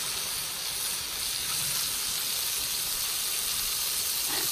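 Mushrooms sizzling in the frying pan of a Trangia 27 spirit stove: a steady, even hiss.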